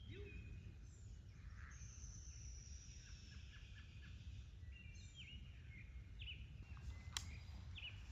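Birds calling and chirping outdoors, with a long thin whistle about two seconds in and short chirps toward the end, over a low steady rumble. A single sharp click sounds near the end.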